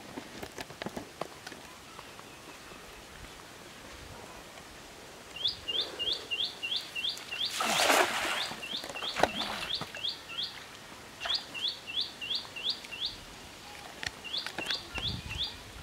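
A cast net lands on pond water with a short splash about eight seconds in. Around it a bird calls in runs of short, sharp, high notes, each falling in pitch, about three a second.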